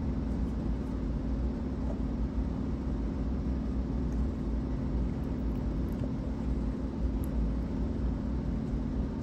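Steady low rumble with a constant hum, unchanging in level.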